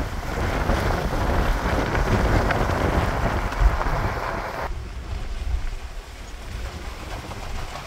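Wind rushing over the microphone above the low rumble of a 4x4 driving slowly on a dirt trail. The wind noise cuts off suddenly a little past halfway, leaving the low rumble.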